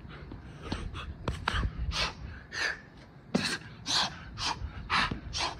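A man breathing hard and fast from the exertion of burpees, loud gasping breaths about two a second, with a few sharp knocks as he drops to the ground.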